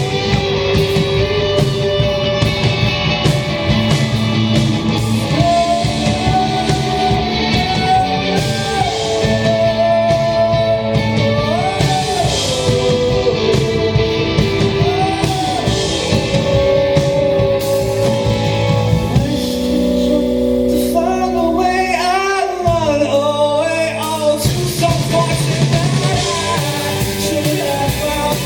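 Live rock band performance with a male lead vocal singing over electric guitar, bass and drums. About two-thirds of the way through, the drums and bass drop away for a few seconds while the voice sings a wavering run, then the full band comes back in.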